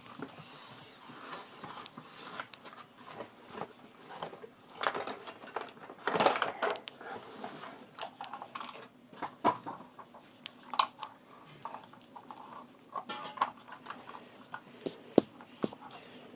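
Rubber eraser scrubbing back and forth on paper, rubbing out a pencil-drawn guide circle, in short uneven bursts with scattered light taps and clicks.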